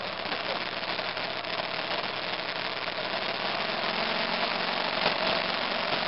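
The single-cylinder engine of a 2002 BMW F 650 GS Dakar motorcycle running steadily while riding, heard from a mirror-mounted camera under a rush of wind and road noise, with many small clicks and rattles.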